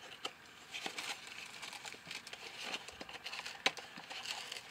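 Thin white card box and paper wrapping being handled and unfolded by hand, a run of crinkling and rustling with small clicks and one sharper snap a little after three and a half seconds in.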